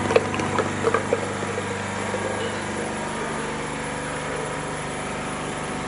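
Steady hum of an electric motor on press and pumping equipment, running evenly throughout. A few light knocks sound in the first second or so.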